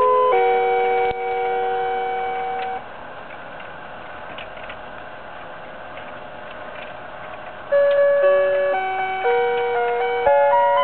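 A simple chiming melody of clear, sustained pure notes. It stops about three seconds in, leaving a few seconds of faint hiss with scattered light ticks, and resumes near the end.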